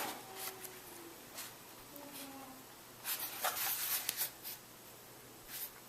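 Hands handling a tablet keyboard dock: light rubbing and small ticks on its casing, with a busier patch of rustling and clicks about halfway through.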